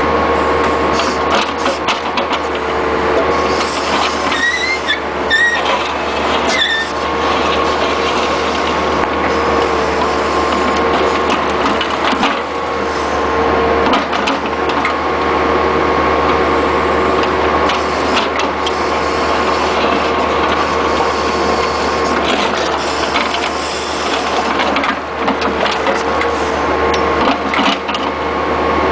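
Bobcat skid-steer loader with a 709 backhoe attachment digging: the engine runs steadily under a constant whine, while the bucket knocks and scrapes through broken-up asphalt in a trench.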